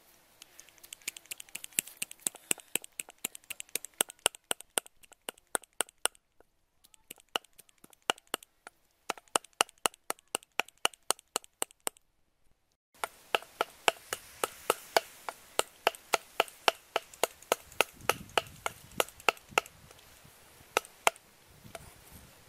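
Cleaver chopping snail meat on a round wooden chopping block: quick, sharp strikes, several a second, broken once by a pause of about a second near the middle.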